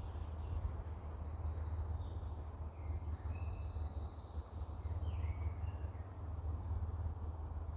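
Small birds singing: scattered short chirps and whistles, with a fast trill about three seconds in, over a steady low rumble.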